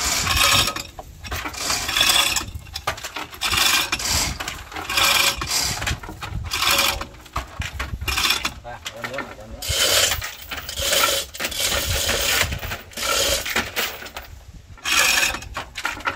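Manual chain hoist being hauled in repeated pulls, roughly one every second or two, with the chain clinking and rattling through the hoist on each stroke.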